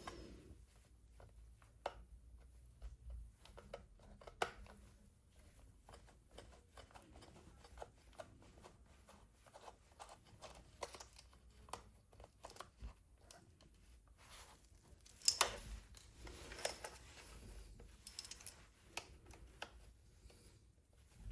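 Small screwdriver working screws out of a Meta Quest 3 headset's plastic housing: faint irregular clicks and ticks, with a few sharper clicks, louder around a quarter of the way in and again about three quarters through.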